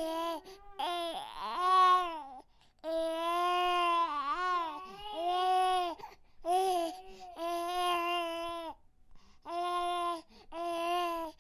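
A baby crying: a string of pitched wails, each one to two seconds long, broken by short breaths. One cry about two seconds in is louder and rougher than the rest.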